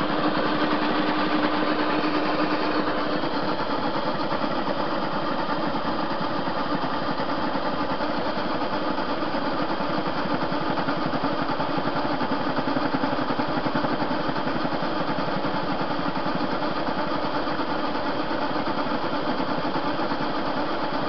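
TV-16 metal lathe running steadily, turning a steel blank under power feed, its three-phase motor run on a capacitor. A continuous motor and gear hum with a fast, even rattle.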